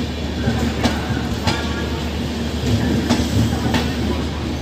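Express train's passenger coaches rolling past with a steady rumble of wheels on rails. Sharp clacks come in pairs as the wheel sets cross a rail joint, about a second in and again about three seconds in.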